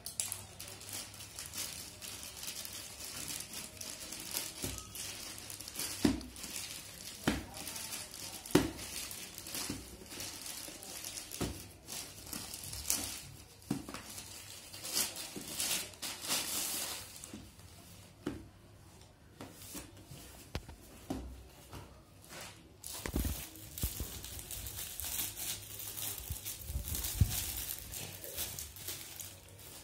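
Plastic courier mailer crinkling and tearing as it is handled and pulled open, with a few sharp knocks. Near the end, clear plastic wrapping around the shoes crinkles.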